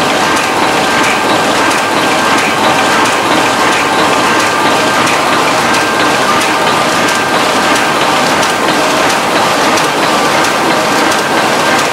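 1991 Heidelberg GTO 52 sheetfed offset printing press running: a steady, dense mechanical clatter of gears and rollers with a faint steady whine over it.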